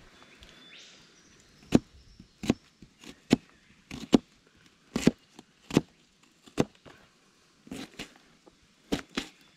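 Knife chopping through vegetables: about ten sharp chops, roughly one a second, beginning a couple of seconds in.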